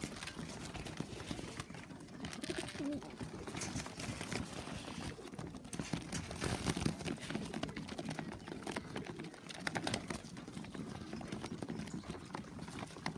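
Young racing pigeons cooing and moving about at the loft, with many small clicks and rustles from wings and feet as they go in.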